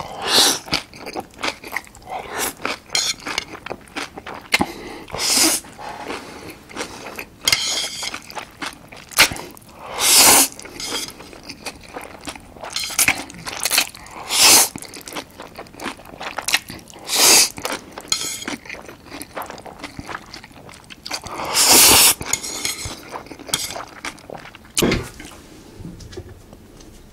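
Close-miked eating of thick Jjapaghetti black-bean noodles: long slurps of noodles every few seconds between rapid wet chewing clicks and smacks.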